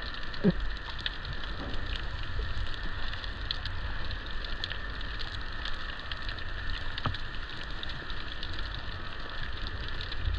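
Underwater ambient sound picked up by a submerged camera: a steady hiss full of fine, dense crackling clicks, over a low rumble.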